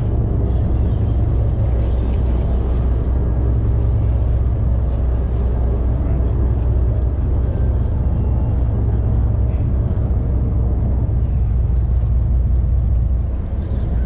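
Steady low drone of a 61-foot sportfishing boat's inboard diesel engines running, dipping briefly near the end.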